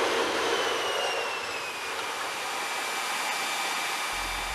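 Jet engine running in a hush house test cell: a steady, even rushing roar, with a faint whine that falls in pitch about half a second in.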